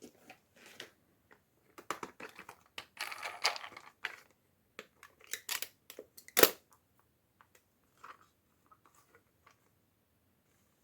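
Toy packaging being handled and opened: irregular crinkling and rustling with small clicks, busiest a couple of seconds in, and one sharp snap about six seconds in.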